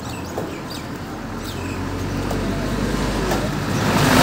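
Road traffic: a vehicle's engine hum and road noise that grow steadily louder, reaching their loudest near the end as the vehicle draws close.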